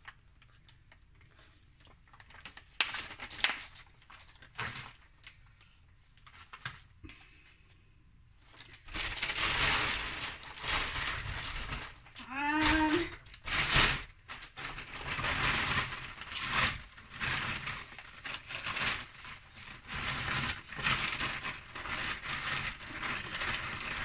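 Bag of potting soil crinkling and rustling as it is handled, in uneven surges from about nine seconds in, after a quieter stretch of faint clicks and knocks.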